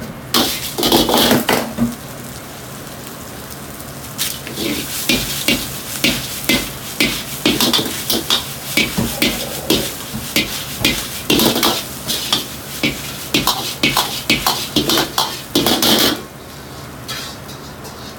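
Metal ladle clanking and scraping against a carbon-steel wok in quick repeated strokes as dried chilies and fried chicken pieces are stir-fried and tossed, with oil sizzling. It opens with a loud burst of sizzling and settles to a quieter sizzle near the end, over the steady roar of the gas wok burner.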